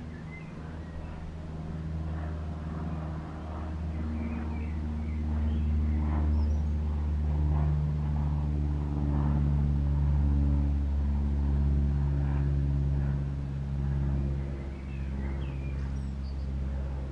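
Steady low motor hum whose pitch shifts a little now and then, growing louder toward the middle, with a few faint high chirps over it.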